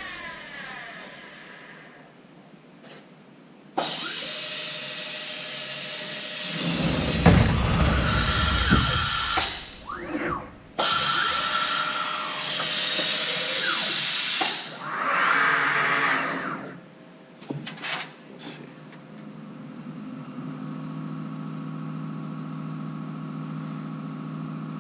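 Shop power tool running in two long bursts of loud hissing, whirring noise, then a shorter burst, before a quieter steady machine hum.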